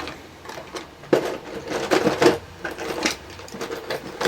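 Small metal file scraping the metal pins of a laptop DC power jack in several short strokes, roughly one a second, scuffing the leads so that solder will stick to them.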